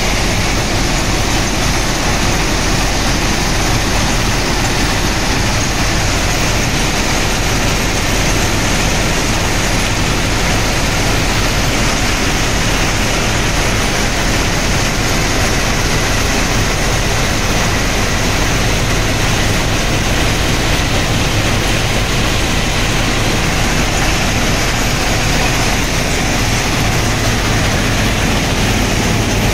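Plasser FRM-85F track formation rehabilitation machine running, a loud, steady mechanical din with a low engine hum underneath.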